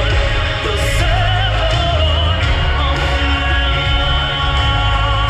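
Laser-show soundtrack music with a sustained, wavering singing voice over a heavy bass.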